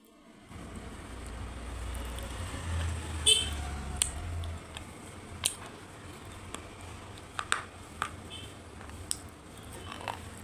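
Sharp, crisp crunches at irregular intervals, a second or more apart, from something being bitten and chewed, over a low rumble that fades out about halfway through.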